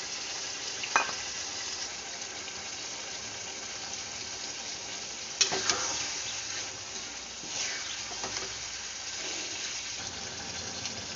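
Chopped banana flower sizzling in hot oil in a pan while being stirred, with a few sharp knocks of the utensil against the pan, about a second in and twice around the middle.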